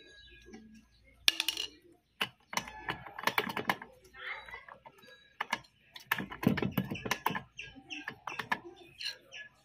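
Metallic clicking and rattling from an old sewing machine's hook and bobbin-case mechanism as it is handled, in several quick bursts of clicks.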